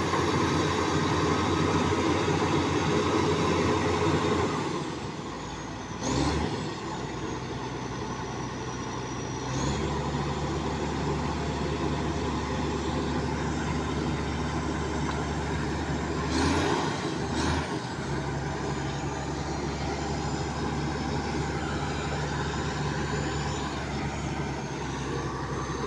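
Bulldozer's diesel engine running, dropping to a lower speed about four and a half seconds in and picking up again near ten seconds. A few short sharp noises with high squealing glides come around six seconds in and again near seventeen seconds.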